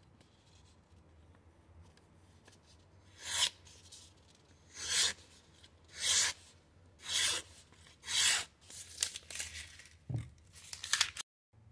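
Knife blade slicing through a sheet of paper in a sharpness test: five long cuts about a second apart, then quicker, shorter strokes and a low thump near the end.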